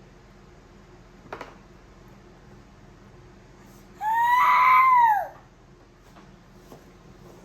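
A 9-month-old baby lets out one loud, high-pitched squeal about four seconds in, lasting just over a second and dropping in pitch as it ends. A short click comes a little over a second in.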